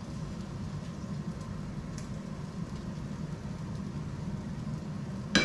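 Steady low hum in the kitchen while a large omelette cooks in a frying pan on the hob, with two sharp clatters near the end.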